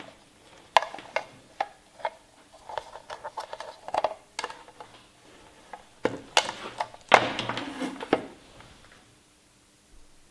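Handling noise from a sewing machine foot control's cord and plastic plug: a string of sharp clicks and taps, then a longer rustling scrape from about six to eight seconds in as the cable moves.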